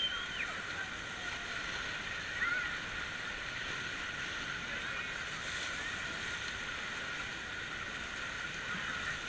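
Water running and splashing steadily, a continuous rushing wash, with a few faint distant voices calling out near the start and about two and a half seconds in.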